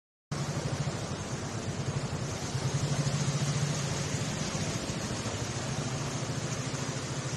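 Motorcycle engine running at low revs as the bike passes close by, riding through shallow floodwater; the engine hum is loudest about three seconds in, over a steady hiss.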